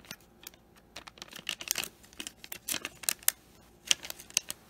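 Foil trading-card pack crinkling and clicking in the fingers as it is handled and turned over, in scattered short crackles that become more frequent about a second in.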